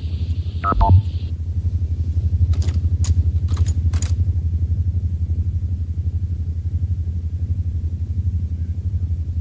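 Steady low throbbing rumble of a science-fiction time-machine sound effect, with a short falling electronic tone about a second in and four brief high blips between two and four seconds in.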